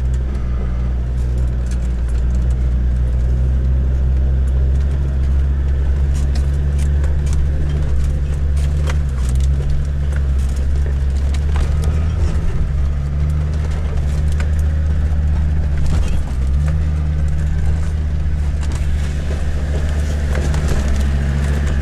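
Land Rover Discovery 2 Td5's five-cylinder turbodiesel engine droning steadily at low revs, heard from inside the cabin while crawling over a rough track. The revs shift a little about halfway through, and scattered knocks and rattles sound as the vehicle goes over stones.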